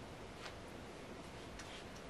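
Quiet room tone with a steady hiss and two faint soft ticks, one about half a second in and one near the end.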